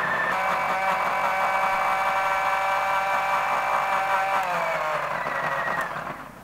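Electric mixer grinder motor running with a steady high whine as it grinds a wet chutney paste in its steel jar. Near the end it is switched off and winds down, the whine falling in pitch as it fades.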